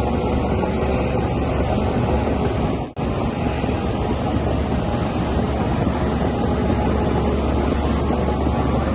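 Shantui DH17C3Pro bulldozer's diesel engine running steadily while working. The sound cuts out briefly about three seconds in.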